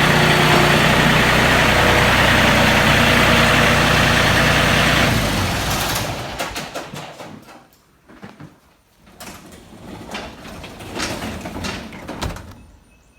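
A tractor engine running loudly and steadily, then dying away about five seconds in, followed by scattered irregular knocks and rattles.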